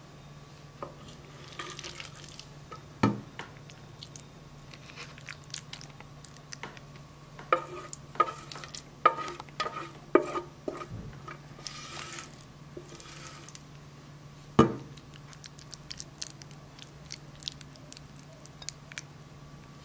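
Wooden spoon scooping thick, sticky carrot jam from a copper pot into a ceramic dish: soft wet, squelching scoops, with several sharp knocks of the spoon on the dishes. The loudest knocks come about three seconds in and about fourteen and a half seconds in. A steady low hum runs underneath.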